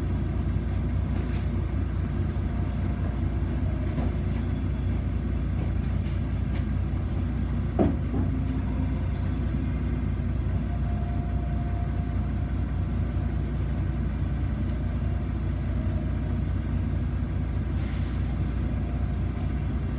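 Steady rumble of a city bus heard from inside the cabin, its engine and road noise running evenly, with a single short knock about eight seconds in.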